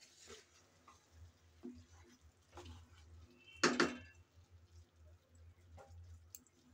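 Wooden spatula stirring thick, nearly dry rice-and-lentil khichuri in a pan: soft, scattered scrapes and pats, with one louder clack against the pan about three and a half seconds in. A faint steady low hum lies underneath.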